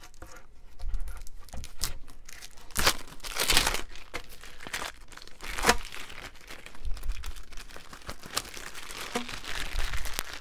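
Plastic packaging of a roll of Monokote covering film crinkling and rustling as the roll is unwrapped and handled, with louder crackles about three seconds in and again near six seconds.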